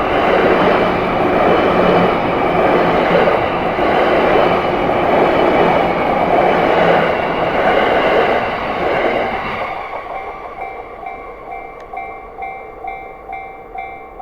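Yamanote Line electric commuter train passing close by over a level crossing, a loud steady rumble that dies away about nine and a half seconds in. Then the level crossing's warning bell rings out alone, a clanging tone about twice a second.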